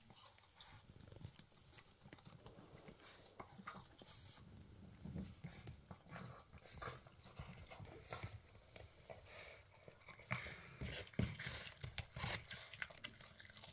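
Poodle puppy gnawing on a chicken foot: faint, irregular crunches and mouth clicks, with a few louder crunches near the end.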